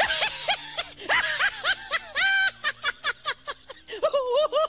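High-pitched laughter in quick snickering bursts, several a second, in a few runs with short breaks.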